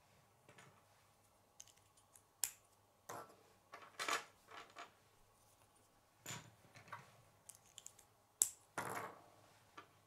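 Plastic K'nex connectors and rods handled, snapped together and set down on a wooden table: a scattered series of sharp plastic clicks with a few short rustling scrapes.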